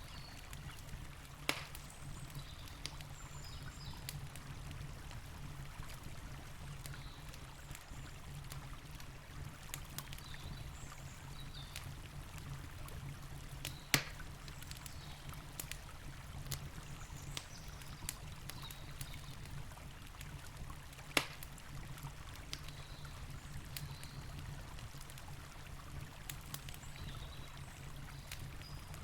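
Campfire crackling with scattered small snaps and three louder pops, near the start, midway and about two-thirds through, over the steady low rush of a river.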